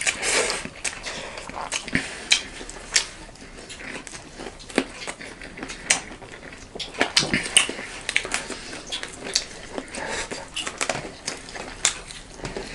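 Close-miked eating: chewing with irregular wet mouth smacks and small clicks of food and utensils against plates.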